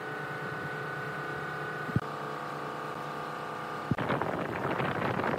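A woodworking machine's motor whining steadily, with a click about halfway through. About four seconds in a louder, coarse rasping noise with rapid crackle starts, like a blade or abrasive working into wood.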